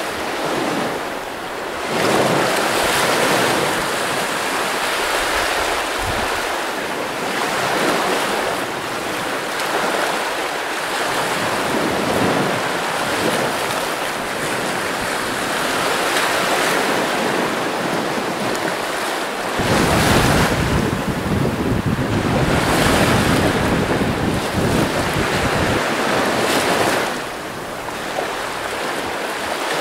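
Wind buffeting the microphone and choppy sea rushing past the bow of a Carter 30 sailing yacht under sail. The rush swells and eases in gusts, with a heavy rumble of wind on the microphone for several seconds starting about two-thirds of the way in.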